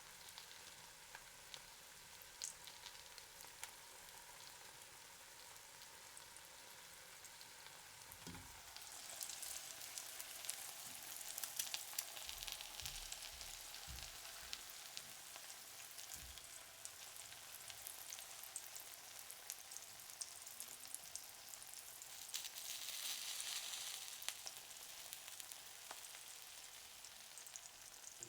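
Eggs frying in a hot pan: a steady sizzle full of small crackles and pops, swelling louder about nine seconds in and again later, with a few soft low thuds.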